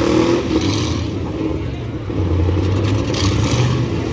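Demolition derby trucks' engines running and revving, a steady low rumble with pitch rising and falling in the first second.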